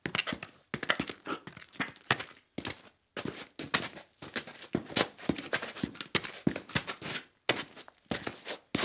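Footsteps in boots at a steady walking pace, each step a sharp knock of heel and sole.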